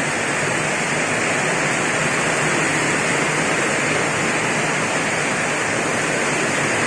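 Heavy tropical downpour, a steady, unbroken hiss of pouring rain.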